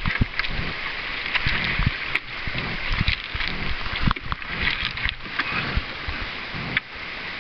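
Canoe coming ashore on a gravel bar: scattered knocks and scrapes of the hull and paddles against stones, over the steady rush of shallow river water.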